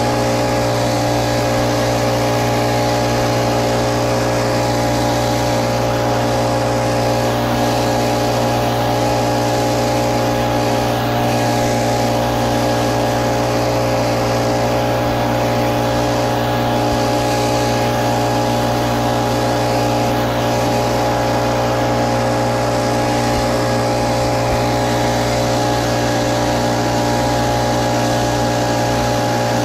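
Little Wonder Optimax walk-behind blower, its gas engine and fan running steadily at an unchanging pitch.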